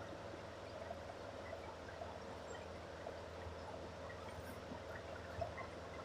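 Faint milk streaming and splashing into a pail as a cow is milked, over a steady low hum.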